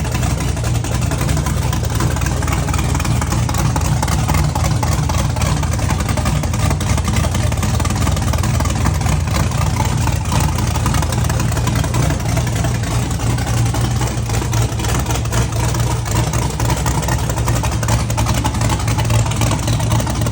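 Cammed, single-turbo Chevy LS 6.0-litre V8 running at a steady idle, built to run on E85.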